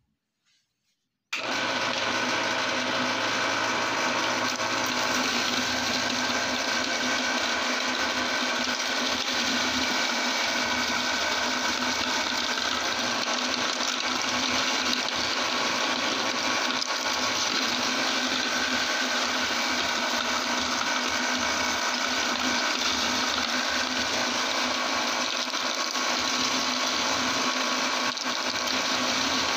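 Electric meat grinder's motor starts abruptly about a second in and runs at a steady whir while it grinds lollipops.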